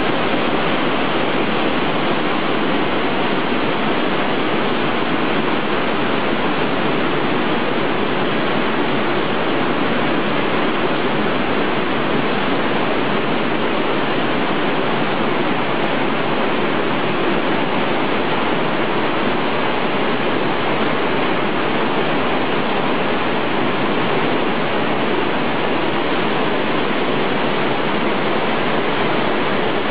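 Waterfall of a karst stream plunging down a limestone gorge: a loud, steady rush of falling water.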